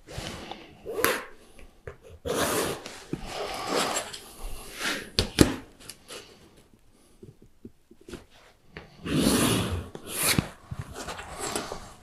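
Pencil scratching along a steel ruler on a painted sheet-metal roofing panel as cutting lines are marked, in several separate strokes, with a sharp click about five seconds in.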